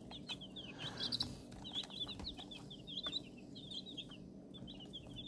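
A brood of young chicks peeping continuously, many short high peeps overlapping, with faint scattered clicks.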